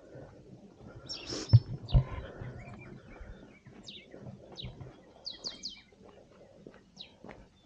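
Birds calling with short, high, falling chirps scattered throughout, with a quick run of notes about five and a half seconds in. Two dull low thumps about one and a half and two seconds in are the loudest sounds.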